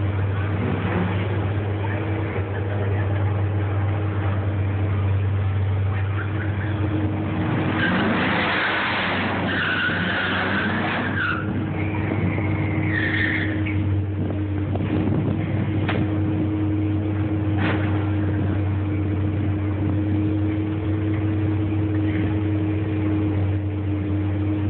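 Drag-race cars idling at the starting line with a steady low rumble. About eight seconds in comes a few seconds of tire squeal, as from a burnout.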